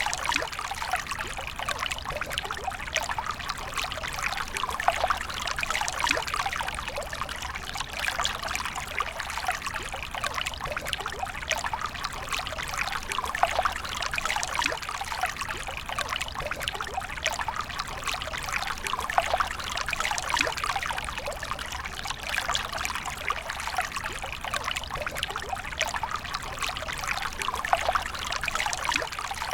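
A steady stream of water trickling and pouring without a break, with a dense patter of tiny splashes.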